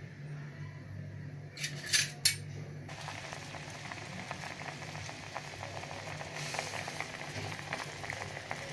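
Water with chopped carrots boiling in a pot, a busy bubbling crackle that sets in about three seconds in. Before it come a few short metal clinks.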